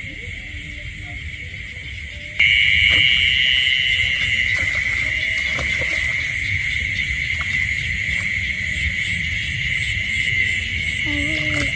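Night-time chorus of crickets trilling steadily at a high pitch, growing suddenly louder about two seconds in. Scattered knocks and splashes from a hoe digging in wet mud sound over it.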